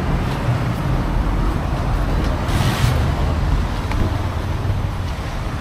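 City street traffic: vehicles running and passing in a steady rumble, with a brief hiss about two and a half seconds in.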